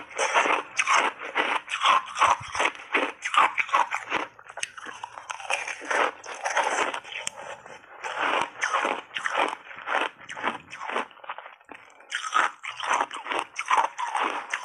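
Close-miked chewing of refrozen ice chunks coated in matcha and milk powder: rapid, loud crunching with a couple of brief lulls between bites.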